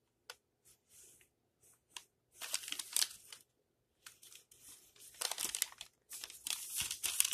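Plastic grocery packaging crinkling and rustling in irregular bursts as items are handled, with short quiet gaps between.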